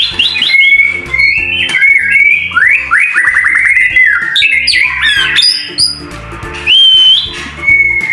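Male white-rumped shama singing loudly: a varied, unbroken run of clear whistles, sweeping slurred notes and fast repeated trills.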